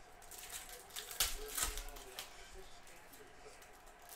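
Foil trading-card pack wrapper crinkling and tearing as it is ripped open by hand, with the sharpest rips about a second and a half in.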